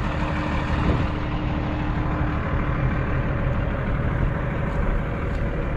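Diesel semi-truck engine idling steadily, a constant low rumble.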